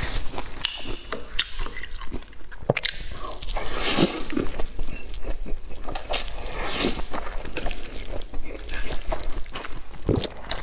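Close-miked eating sounds: a person chewing and slurping wide oil-splashed noodles (youpo mian), with many short wet mouth clicks and a few longer slurps.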